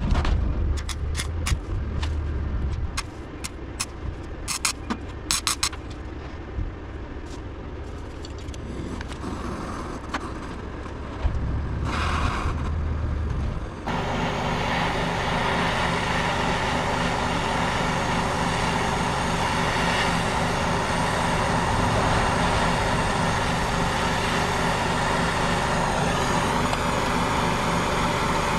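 Plug-welding a steel seal strip onto a car body: for the first half, short sharp crackles and clicks come and go with a low hum. About 14 seconds in the sound switches abruptly to a steady, even hiss that runs on.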